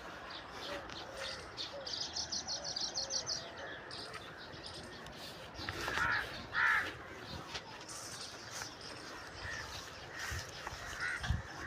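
Birds chirping and calling from their nests at dusk, an evening roosting chorus: a fast run of high chirps about two seconds in and a few louder calls around six seconds in.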